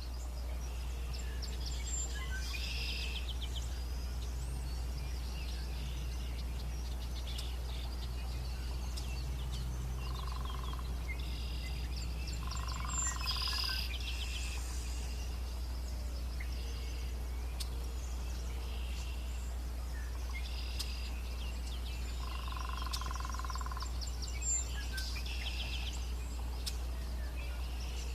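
A songbird singing phrases of fast trills and chirps that recur every few seconds, with a few steadier, lower notes at times, over a constant low rumble.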